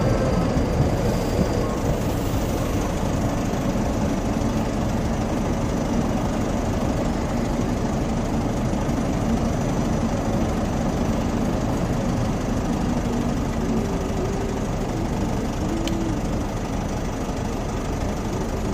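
Steady hum of a Class 458 electric multiple unit standing at the platform, its onboard equipment running while the train waits.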